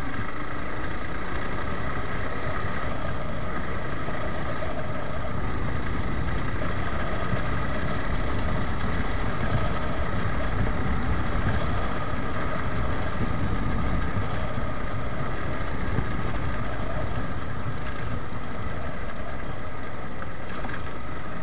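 Suzuki Gixxer motorcycle's single-cylinder engine running steadily while riding at an even speed, with wind rushing over the microphone.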